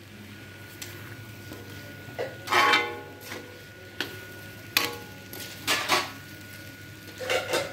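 A spoon stirring a thick chicken-and-onion fry in a thin metal wok, scraping and knocking against the pan in irregular clanks that ring briefly. There are a few clusters of clanks, the loudest about two and a half seconds in and again near the end.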